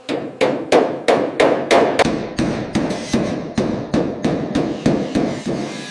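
Hammer striking sheet metal in a steady rhythm, about three blows a second, each with a short ring.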